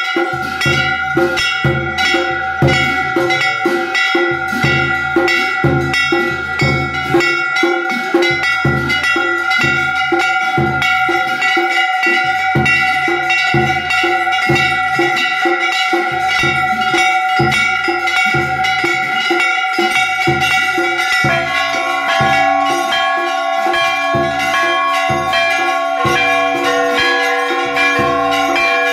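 Large brass temple bells rung continuously for evening aarti, rapid strikes with their ringing tones overlapping, over steady drum beats. About two-thirds of the way through, a bell of another pitch joins in.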